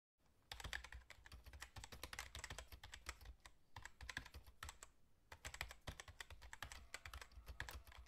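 Faint computer keyboard typing: rapid runs of key clicks, broken by two short pauses.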